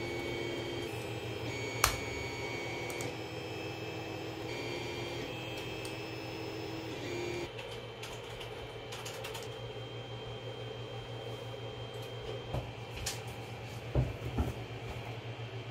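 3D printer stepper motors whining in several steady tones that jump to new pitches every second or so, then falling silent about seven seconds in, over a steady low hum. A sharp click about two seconds in and a few knocks near the end.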